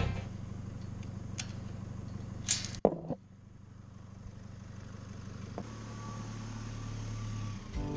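GMC Canyon diesel pickup driving slowly over a rough dirt track, heard from a camera mounted on the truck: a steady low engine hum. Two short knocks come between two and three seconds in, after which the sound drops quieter and slowly builds back up.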